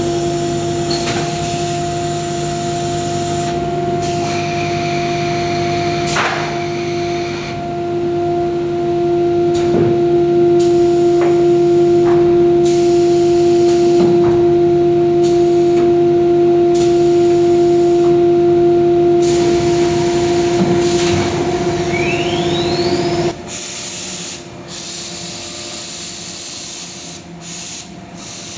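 CNC router spindle running with a loud steady whine over a constant hiss. The whine stops suddenly about five seconds before the end, leaving a quieter hiss.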